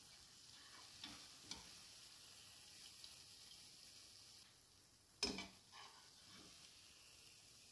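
Pumpkin fritters frying in hot oil with a faint, steady sizzle, while a metal slotted skimmer clinks against the pan a few times as it lifts them out. The sharpest, loudest knock comes about five seconds in, with two softer ones after it.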